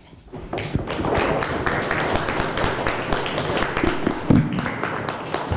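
Audience applause, building up within the first second and then holding steady, with a brief low thump about four seconds in.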